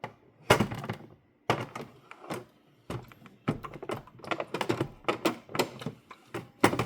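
Irregular series of clunks and clicks of hard plastic being handled on a De'Longhi Magnifica Evo espresso machine, a dozen or more sharp knocks at uneven spacing.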